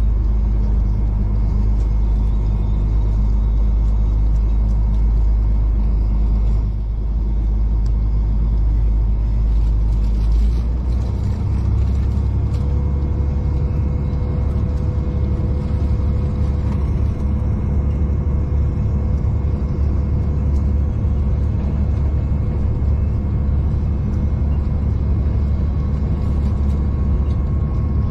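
V/Line diesel passenger train running, heard from inside the carriage as a steady low rumble with an engine drone. The drone shifts in pitch about ten seconds in, and a faint steady whine joins it shortly after.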